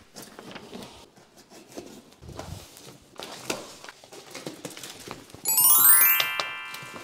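Packing tape and cardboard box flaps being torn and pulled open, a run of irregular rustles and crackles. About five and a half seconds in, a quick rising run of bright ringing notes, a sound-effect flourish, comes in as the loudest sound and fades out.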